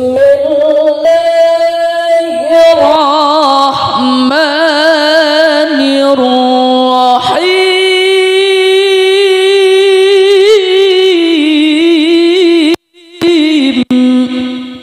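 A man reciting the Quran in melodic tilawah style into a microphone, holding long ornamented notes with a wavering vibrato on one unbroken breath for about thirteen seconds. After a brief stop near the end he sings a short further phrase.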